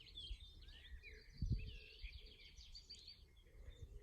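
Mixed birdsong chorus of several small songbirds chirping and trilling, a wren among them, over a low rumble, with a brief low thump about one and a half seconds in.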